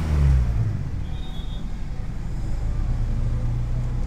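Wind buffeting the microphone on the roof of a moving bus, over the low, steady running of the bus's engine; the engine's pitch falls in the first second.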